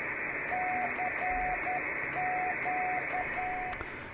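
Morse code tone from an Elecraft KX3 receiving the Pixie 40m QRP CW transceiver's test transmission, hand-keyed by touching two wires together: an uneven string of dashes and dots on one steady pitch over receiver hiss, starting about half a second in and stopping near the end.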